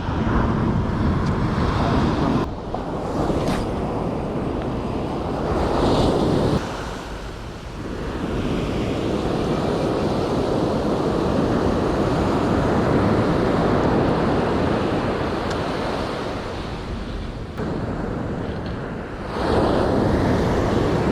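Surf washing onto a beach, swelling and ebbing in surges, with wind rumbling on the microphone.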